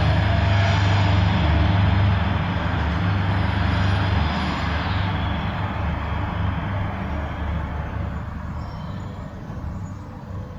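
A large road vehicle passing close by: loud low rumble with tyre and road noise, fading away steadily over the second half.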